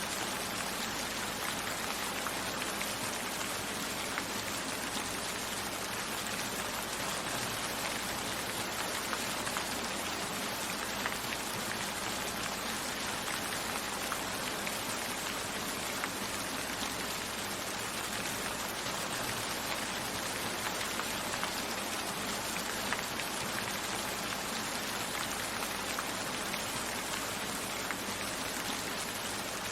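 Steady rain falling, an even hiss of many drops with small scattered taps of individual drops hitting a surface.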